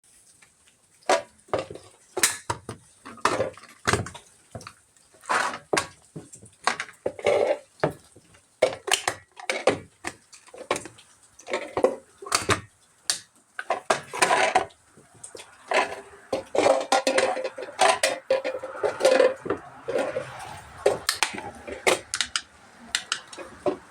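Tin cans being smashed: a long run of irregular metallic bangs and clanks, about one to two a second, with ringing after the hits and a denser clatter in the second half.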